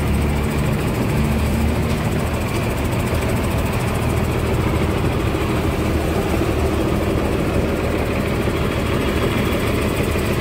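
Large diesel bus engine idling steadily, a low even drone close by.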